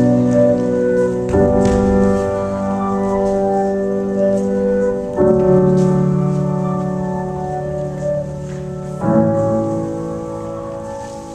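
Slow music of sustained, organ-like keyboard chords, each held and then changing to the next about every four seconds.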